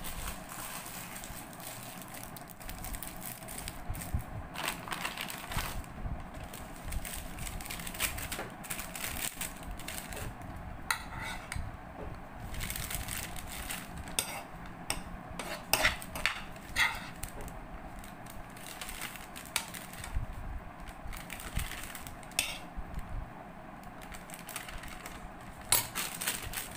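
Irregular clinks and knocks of metal dishes and utensils, a few ringing briefly, with crunching in between.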